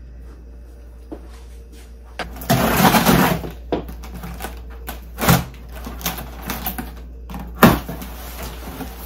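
A cardboard shipping box being handled and its packing tape cut with scissors: a loud second-long rush of noise a couple of seconds in, then sharp clicks and knocks of the blades and cardboard.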